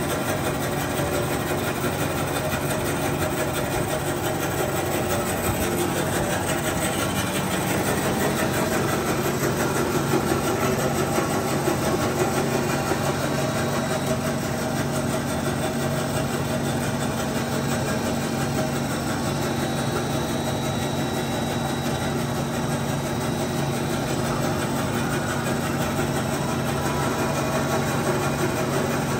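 DoALL C-5A metal-cutting band saw running steadily with a constant mechanical hum, a little louder for a few seconds in the middle.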